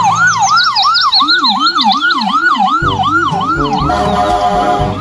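Toy ambulance's electronic siren wailing fast, each sweep rising and dropping about three times a second; a second, lower siren joins about a second in, and the sound changes to steady tones near the end.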